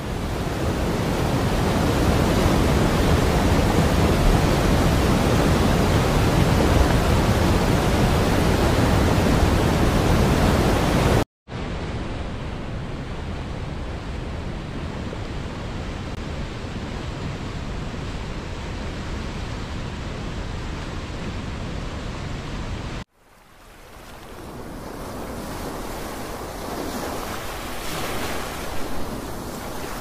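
Rushing water in three spliced recordings: a waterfall's loud, steady rush that cuts off abruptly about a third of the way in; a river's rapids, quieter and steady; then, after another sudden cut, sea surf fading in with small swells of waves washing ashore.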